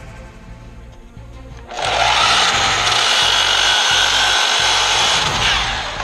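Makita miter saw starting up about two seconds in and cutting through a wood board, a loud steady whine that runs for about four seconds and fades near the end.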